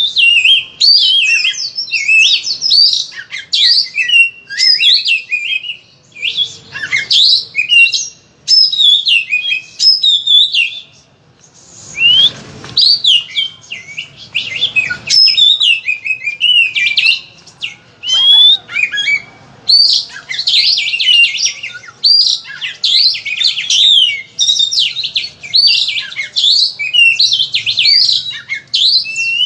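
Oriental magpie-robin singing loudly and almost without a break: a rapid, varied stream of whistles, chirps and trills, full of imitations of other birds' calls, with a short pause about eleven seconds in.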